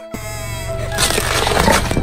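Cartoon music with a series of falling tones, then about a second in a loud crushing, breaking noise as a car tyre rolls over a red ball and squashes its red pulpy contents.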